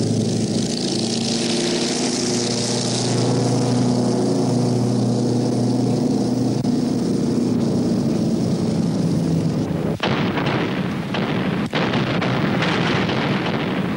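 Propeller-driven bomber's piston engines droning steadily through take-off and climb-out. About ten seconds in the drone gives way to a rougher, crackling rumble with a few sharp knocks.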